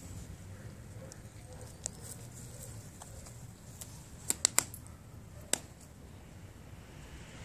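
Metal collar fittings on a dog clinking as it walks past close by: three quick sharp clinks about four seconds in and one more a second later, over a low outdoor rumble.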